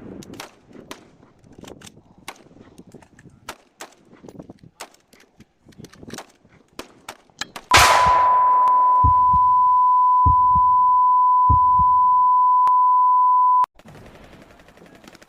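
Airsoft replicas firing: sharp, scattered snapping shots, some in quick strings. About eight seconds in comes a loud crack, then a loud, steady high beep that holds for about six seconds and cuts off suddenly, with a few low thumps under it.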